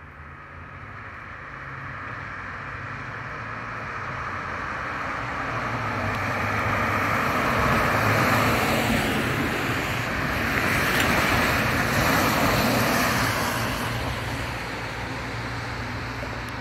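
Fire engine driving past on a wet, slushy street: a low diesel engine drone and tyre hiss swell as it approaches and peak about eight seconds in. A second swell follows a few seconds later before the sound eases off.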